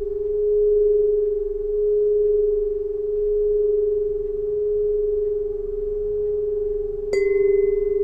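Solfeggio tuning pipe ringing a single steady pure tone that swells and fades gently. About seven seconds in it is struck again: a short metallic ping of higher overtones, then the tone rings on louder.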